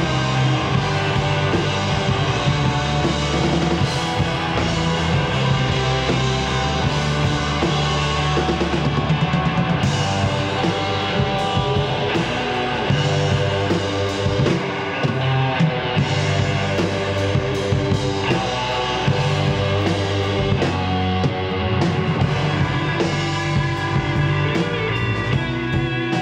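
Indie rock band playing live with no singing, an instrumental stretch of the song: distorted electric guitars, electric bass and drum kit at a steady level.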